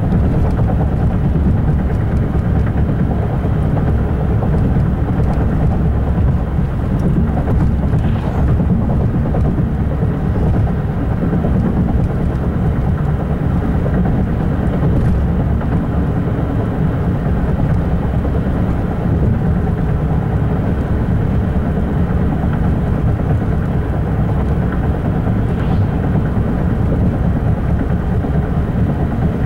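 Steady low rumble of a passing double-stack intermodal freight train, its wheels rolling over the rails.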